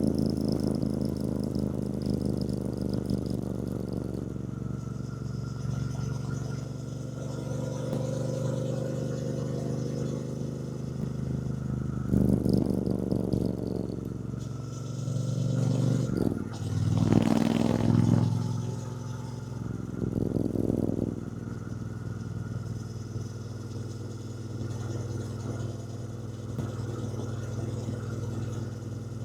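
2024 Triumph Bonneville T120's 1200 cc parallel-twin engine running at low road speed, heard from the rider's position. The engine speed rises and falls a few times, loudest about two-thirds of the way in, then settles to a steady low note near the end.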